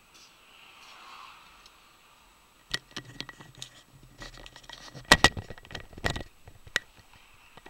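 Dashcam being handled and turned on its mount: a run of close clicks, knocks and rattles, loudest about five seconds in, over faint cabin road noise.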